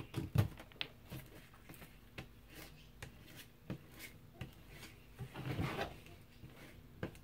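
Cardboard being handled on a tabletop: a few light knocks and taps, the strongest near the start, then a rubbing, scraping sound about five and a half seconds in as a glue-coated cereal-box panel is laid onto a cardboard piece and pressed flat by hand.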